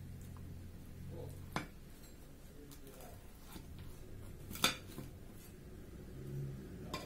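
Metal utensils clinking and scraping against a glass baking dish as a baked cheese casserole is cut into: a few sharp clinks, the loudest about four and a half seconds in, over a faint low hum.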